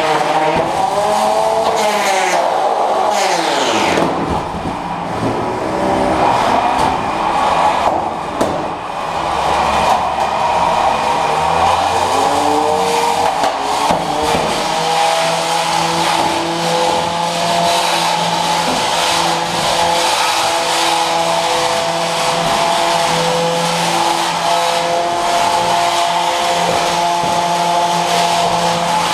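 Electric motors of 3 lb combat robots whining, the pitch sweeping up and down as they speed up and slow down, then settling about halfway through into a steady whine held to the end.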